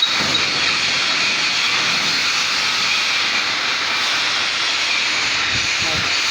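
Welding arc on a pipe joint hissing and crackling steadily, with no break.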